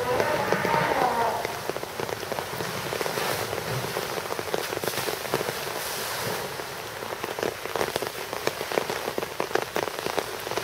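Steady rain falling, mixed with water splashing as an African elephant thrashes and plunges in its pool; a dense, crackling patter throughout.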